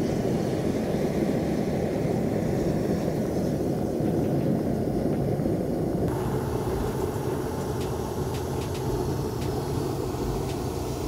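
Propane burner flames jetting from the top of a homemade fire umbrella, a steady low rushing noise. About six seconds in the sound shifts, turning hissier with a few faint clicks.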